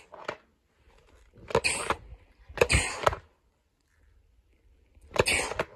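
Three short, sharp bursts of breath from a person: two about a second apart, the third a couple of seconds later.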